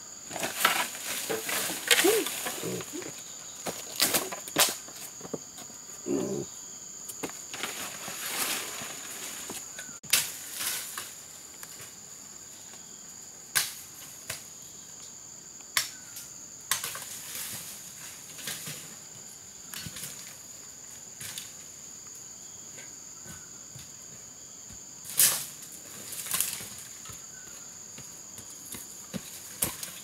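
Steady high-pitched drone of rainforest insects, crickets or cicadas, with scattered crunches and snaps of footsteps and hands in dry leaf litter and bamboo twigs.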